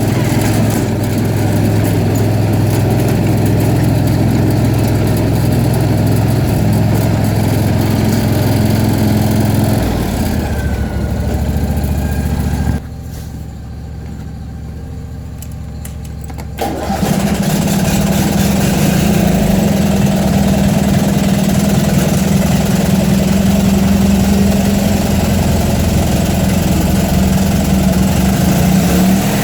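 Craftsman garden tractor engine running after a cold start. Its note drops about ten seconds in and runs much quieter for a few seconds, then picks up suddenly to a steady, higher note about seventeen seconds in.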